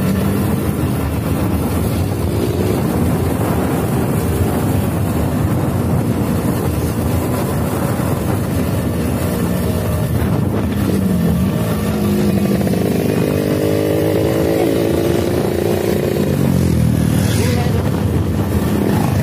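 Motorcycle engine running under way, with wind rushing over the microphone. The engine's pitch rises and falls with the throttle, climbing in the second half.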